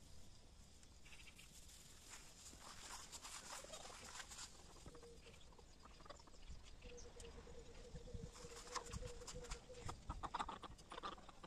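Faint clucking of domestic hens, over rustling and footsteps in grass.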